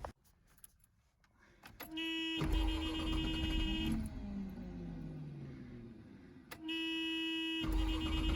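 1984 Mazda RX-7's 12A rotary engine cranked on the starter twice after a dose of starter fluid, without catching. Each attempt is a steady electric whine over a low churning rumble. The first stops and winds down with falling pitch about four seconds in, and the second starts about two and a half seconds later.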